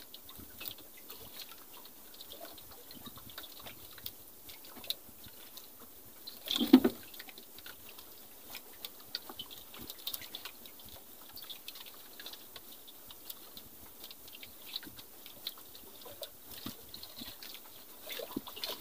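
Water lapping and slapping against the hull of a small outrigger boat at rest, with scattered light clicks and knocks. One louder thump comes about seven seconds in.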